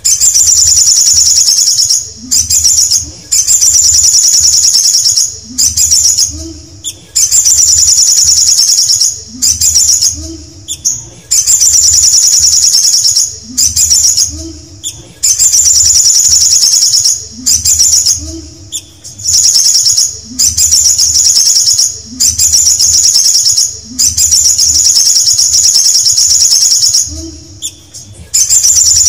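Male olive-backed sunbird singing: a high, fast trilling phrase of about two seconds, repeated about a dozen times with brief pauses between.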